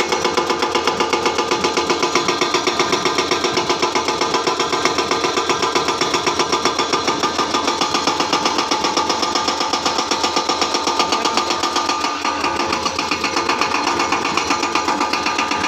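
Excavator-mounted hydraulic rock breaker hammering stone in rapid, even blows, many to the second, with the machine's engine running underneath.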